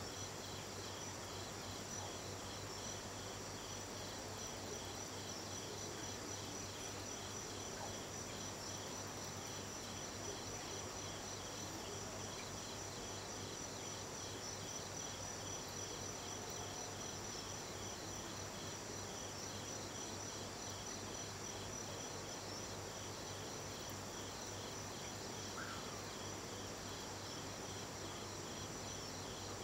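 Night insects, crickets, chirping without pause: a continuous high trill with a rapidly pulsing chirp beneath it that fades after the first ten seconds or so, over a low steady hum.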